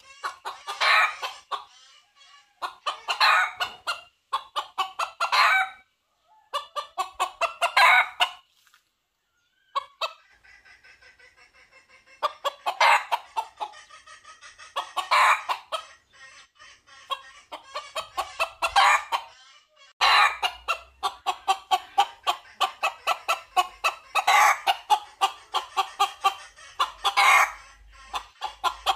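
Red junglefowl calling in repeated bouts of rapid clucking pulses, each bout about a second long with short gaps, coming closer together in the second half: a cock's calls for hens.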